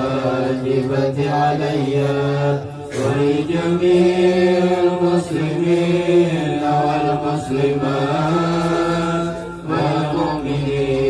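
A group of men chanting maulid verses together in long, held melodic phrases, with short breaks about two and a half seconds in and again near the end.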